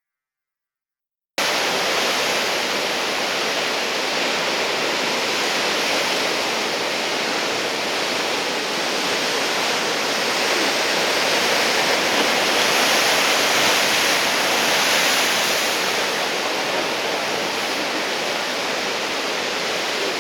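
Ocean surf from big swell breaking and washing on the shore, a steady rushing that swells a little midway; it cuts in suddenly about a second and a half in.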